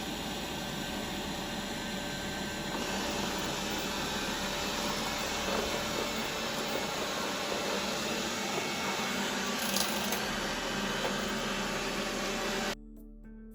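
Roborock E-Series robot vacuum cleaning: a steady whirring of its suction fan and brushes that cuts off abruptly near the end.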